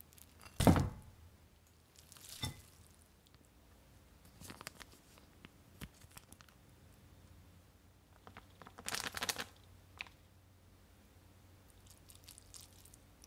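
Kitchen handling sounds: a sharp thump about a second in, a few scattered clicks and knocks, and a short burst of crinkling and tearing of packaging near the nine-second mark.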